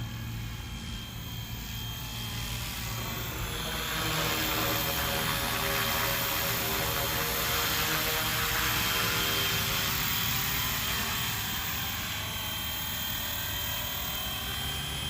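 FlyWing FW450 V3 electric RC helicopter flying: a steady rotor hum and motor whine that grows louder about four seconds in as it comes closer, then eases off again near the end.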